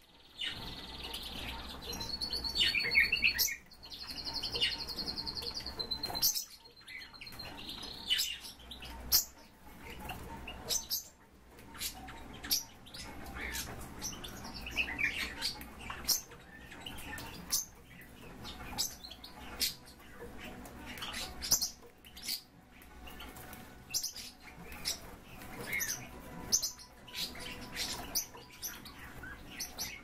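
Birds chirping, with a high, pulsed trill held for several seconds near the start, over scattered sharp taps and rustles as a hoopoe pecks in a plastic bowl of lettuce and a sand tray.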